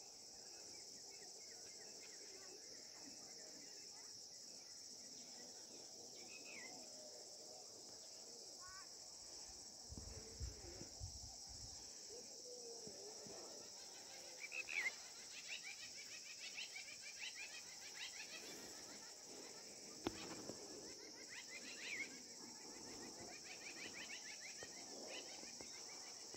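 Steady high-pitched insect chorus, crickets or the like, with a few short bird chirps now and then.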